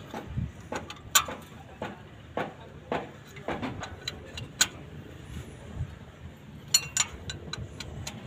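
Hand tools and metal parts being handled during engine repair work: irregular sharp metallic clicks and clinks, about a dozen, with the loudest about a second in, around four and a half seconds in, and a bright pair near seven seconds.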